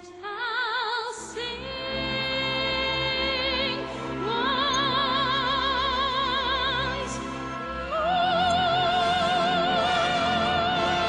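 Operatic voice singing long held notes with a wide vibrato over a classical accompaniment, moving to a new held note about every three to four seconds.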